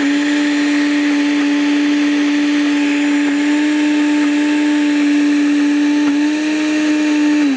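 Ozen HB300RE vacuum blender's motor running steadily at high speed, blending cold limes into a purée. Its pitch lifts slightly about six seconds in, and the motor starts to wind down right at the end.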